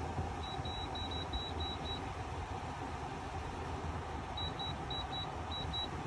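Black+Decker BPACT12WT 12,000 BTU portable air conditioner running steadily on its max setting, a constant fan-and-compressor noise with a low hum. Over it, two runs of quick, high beeps, about five a second, one just after the start and one about four and a half seconds in.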